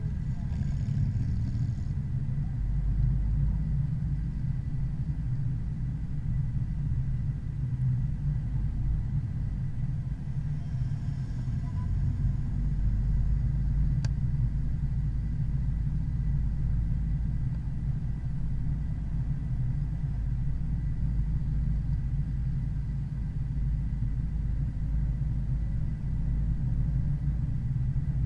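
Steady low rumble of a car's engine and tyres on the road, heard from on board while cruising at a moderate, even pace.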